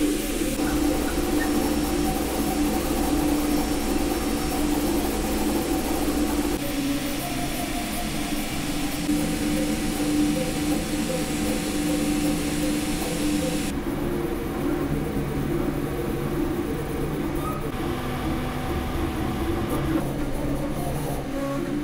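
Kingroon KLP1 CoreXY 3D printer running a print: stepper motors whine in wavering, shifting tones as the print head moves, over a steady fan hiss. The sound changes abruptly a few times.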